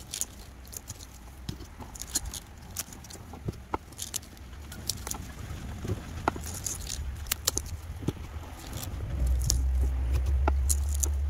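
A knife cutting through fleshy succulent stems and leaves being snapped off by hand: scattered sharp clicks and snaps at irregular intervals. A low rumble grows louder near the end.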